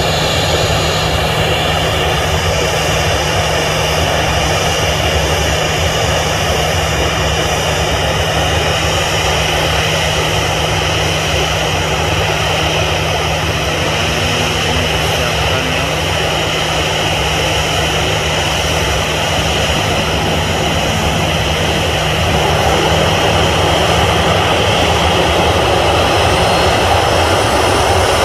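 Boeing 737-800's twin turbofan jet engines running at low thrust as the airliner sits on the runway before takeoff: a steady jet whine over a low hum and rushing noise. It grows a little louder about three-quarters of the way through.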